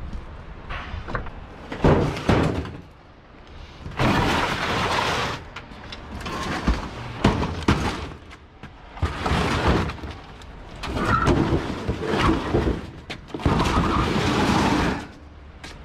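Metal knocks, then the sheet-metal frame of a stripped dishwasher being dragged and shoved over wet steel plates and ground in five rough scraping stretches, each a second or two long.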